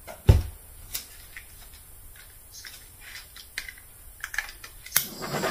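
Light handling clicks and taps, with a dull thump about a third of a second in. Near the end a handheld butane blowtorch clicks and lights, then hisses steadily.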